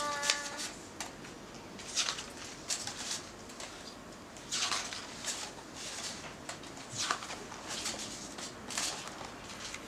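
Paper pages of a blank book dummy being turned one after another: a series of soft paper swishes and rustles, roughly one every second.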